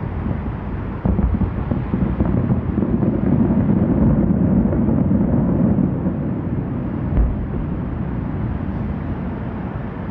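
Aerial firework shells bursting at a distance, their booms running together into a continuous low rumble. A sharp bang comes about a second in and a thump near seven seconds. The rumble swells in the middle and eases off toward the end.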